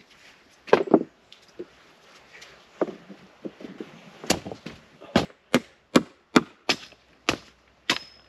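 Wood being chopped: two heavier blows about a second in, then from about four seconds in a steady run of sharp chopping strikes, roughly two or three a second.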